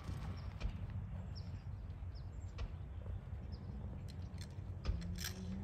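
Scattered soft hoofbeats of a horse loping on arena dirt, with small birds chirping in short high downward chirps over a steady low rumble.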